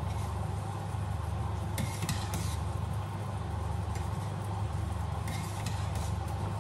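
Steady low hum of a kitchen cooker-hood fan, with a couple of brief scrapes from a spoon working in a steel pot on the stove.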